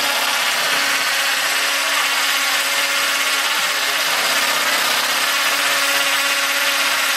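Cordless drill running steadily under load while drilling overhead.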